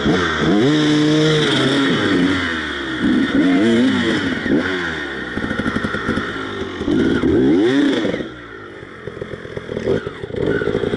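Husqvarna enduro motorcycle engine revving in short bursts, pitch rising and falling again and again as it climbs over rocks, with clatter of the bike against stones. About eight seconds in the engine drops back to a low run for a moment before picking up again.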